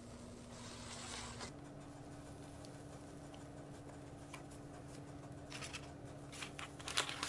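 Plastic dough scraper spreading cake batter over parchment paper on a baking tray: soft scraping, then a few light clicks and taps in the second half, the loudest about seven seconds in. A steady low hum sits underneath.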